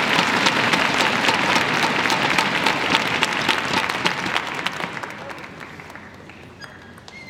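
Audience applauding, the clapping thinning out and fading away over the last three seconds.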